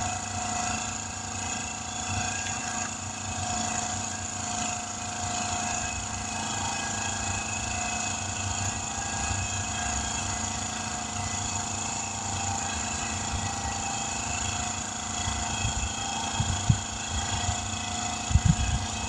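An engine running steadily, with a few short low thumps near the end.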